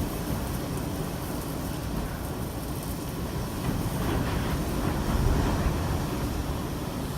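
Hurricane-force wind rushing and buffeting the microphone as a dense, steady roar, gusting stronger about four seconds in.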